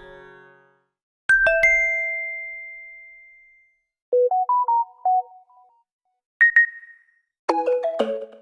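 Samsung phone notification tones played one after another with short silences between. First comes a two-note chime that rings on for about two seconds. Then a quick run of short notes, a brief double ding, and another quick cluster of notes starting near the end.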